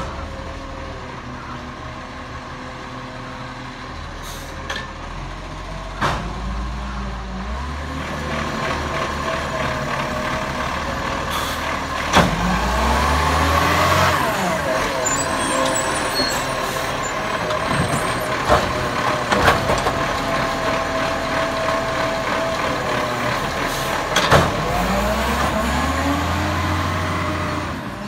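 ACCO side-loading garbage truck working the kerb: its engine running and revving up and down several times to drive the hydraulic lifting arm, with a few sharp bangs and knocks as bins are lifted, emptied and set down, and the hiss of air brakes.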